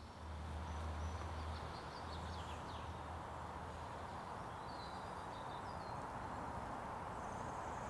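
Quiet outdoor ambience: a steady background hum with a few faint bird chirps.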